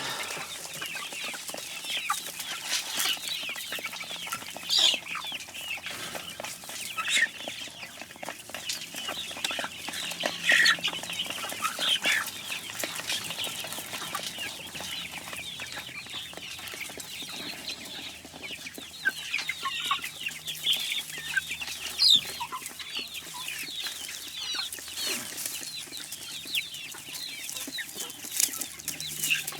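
A flock of chickens clucking and calling while they feed: many short, irregular clucks and chirps overlapping, a few louder calls standing out, with scattered sharp clicks among them.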